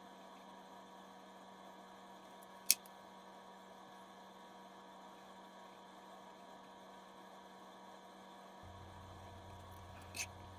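Faint steady electrical hum with a few fixed tones, and a deeper hum joining late on. Two short sharp clicks cut through it, the louder about three seconds in and a weaker one near the end.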